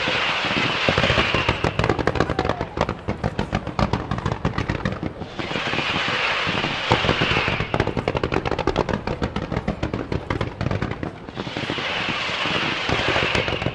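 Professional fireworks display: rapid, continuous strings of bangs and reports. Three surges of dense hiss, each about two seconds long, come at the start, a little past the middle and near the end.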